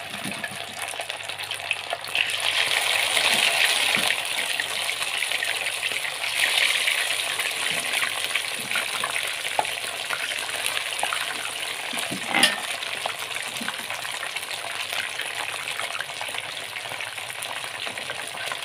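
Catfish pieces frying in hot oil in a wok: a steady sizzle that swells louder twice in the first seven seconds, with one sharp clink a little past the middle.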